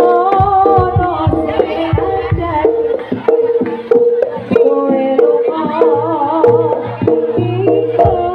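Live jaranan gamelan music: steadily repeated gong-chime notes and hand-drum strokes under a wavering lead melody.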